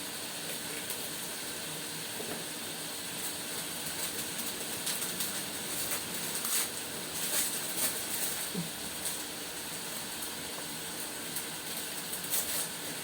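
Pork belly frying in hot oil in a pan: a steady sizzle with scattered crackles, busiest in the middle and again near the end.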